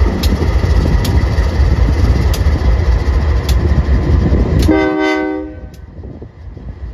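GE Dash 9 diesel locomotive running close by with a loud, heavy low rumble, then one short train horn blast nearly five seconds in, after which the rumble drops away.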